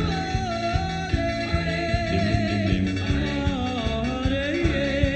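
Doo-wop style rock song playing: a steady beat with bass and guitar, and a long held melody line gliding slowly over it.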